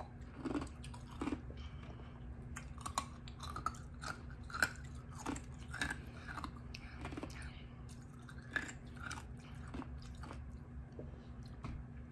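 Chewing and mouth sounds of people eating popsicles and fresh blackberries: irregular small smacks and clicks, with short pauses between.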